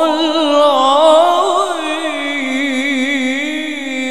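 A man's voice in melodic Quran recitation, drawing out the closing "Sadaqallahul 'azim" in one long ornamented melisma with quick turns of pitch, climbing a little in the first second and a half, then sinking lower and steadier near the end.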